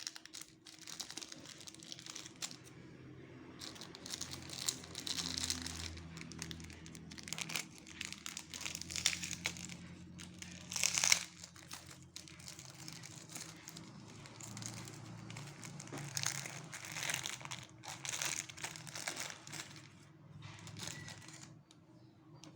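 Parcel packaging crinkling and rustling as it is handled and unwrapped, in irregular bursts, with a sharp loudest burst about eleven seconds in.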